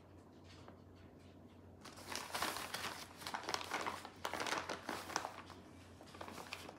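Plastic bag of shredded cheese crinkling as a hand rummages in it for a handful: a run of rustles starting about two seconds in, then a short one near the end.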